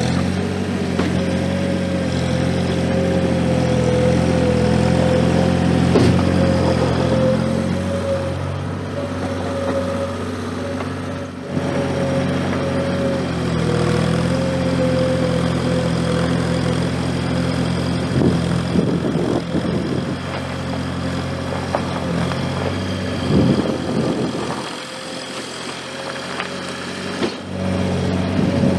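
Gehl 4835 SXT skid steer's engine running steadily, with a steady whine over it and a few short knocks. It quietens for a few seconds near the end, then picks up again.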